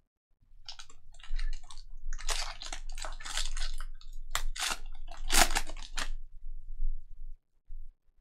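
A 2021-22 Panini Donruss Basketball hobby pack's foil wrapper crinkling and tearing as it is ripped open by hand: a series of crackling bursts for about six seconds, loudest near the five-second mark, over a low handling rumble.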